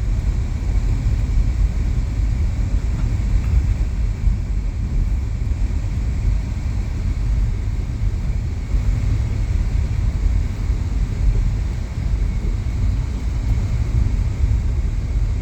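Vehicle engine running with a steady low rumble and no breaks.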